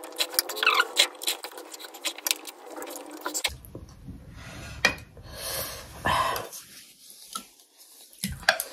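Close-up mouth sounds of eating thukpa noodles: a slurp, then rapid wet chewing and smacking clicks. About three and a half seconds in, this gives way to sparser chewing clicks.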